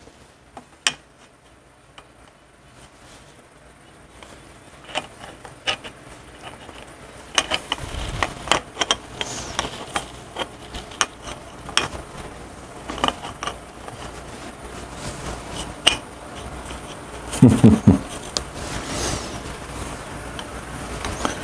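Scattered light clicks and taps of metal engine parts being handled as a Harley Knucklehead piston is lined up on its connecting rod and its wrist pin worked into place by hand.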